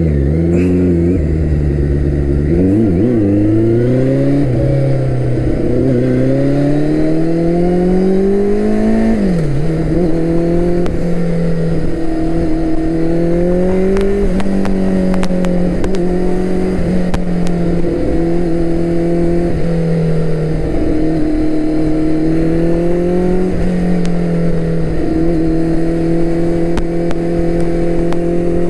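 Loud turbocharged Suzuki Hayabusa inline-four motorcycle engine under way. It accelerates through the gears, its pitch climbing and falling back at each shift, with one long climb ending in a sharp drop about nine seconds in. After that it settles to a steady cruise with small rises and dips as the throttle is eased on and off.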